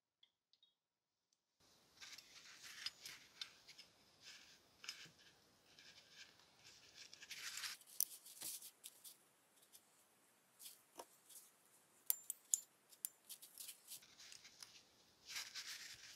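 Faint handling sounds begin after about a second and a half: small metallic clicks and rustling as a brass rivet is fitted into the hinge of an aluminum grapefruit corer on a paper towel.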